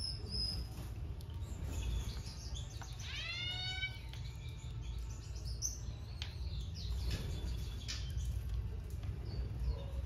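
Small aviary birds (finches and a Japanese tit) chirping in short, scattered calls, with one longer call about three seconds in, over a steady low rumble.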